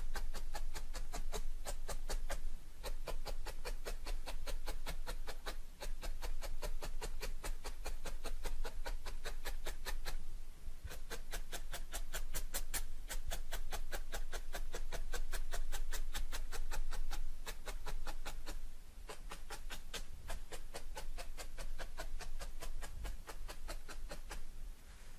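Barbed felting needle stabbed rapidly and repeatedly through loose wool into a dense foam mat: a quick, steady tapping of several strokes a second as the wool fibres are felted down onto the backing.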